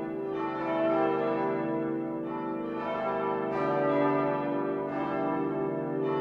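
Church bells in full peal: several large bells ringing together, their strikes coming several times a second and overlapping into a continuous layered ringing.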